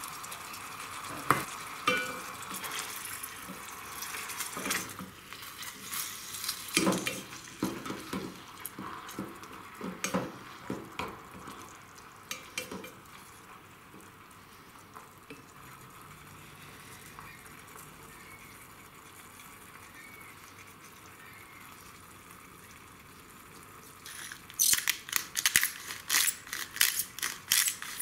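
Minced beef sizzling as it browns in a stainless steel pot, with a wooden spoon knocking and scraping against the pot as it is stirred through the first half. Near the end, a pepper mill grinds over the pot in a fast run of dry clicks.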